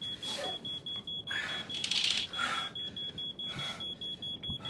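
Smoke alarm going off: a rapid, even run of high-pitched beeps, signalling smoke or fire, with a few breathy gasps over it.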